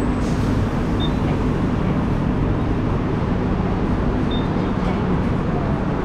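CNG city bus engine idling with a steady low rumble, heard close by at the open front door. A couple of faint short high beeps sound about a second in and again past the four-second mark.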